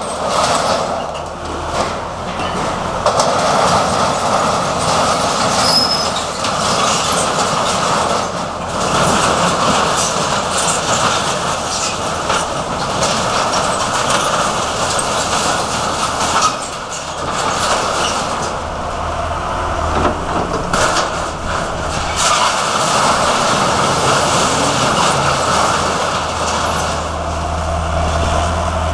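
Tracked excavator with a demolition shear tearing and crushing corrugated sheet-metal roofing: continuous scraping, screeching and crunching of metal with many sharp knocks, over the machine's diesel engine, whose rumble grows louder near the end.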